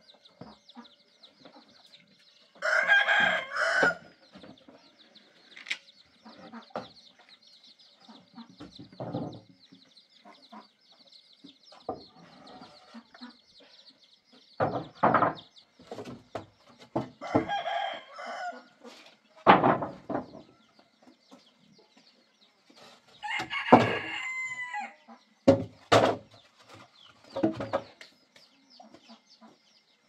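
Rooster crowing three times, about three seconds in, near the middle and near the end, with chickens clucking between the crows. Several sharp knocks come in between, and a faint steady high hiss runs underneath.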